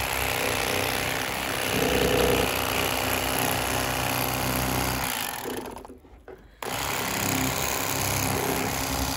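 Electric fillet knife running with a steady buzz as its blades saw through a northern pike behind the gill plate and along the backbone, cutting through the rib bones. The motor stops for about a second just past the middle, then starts again.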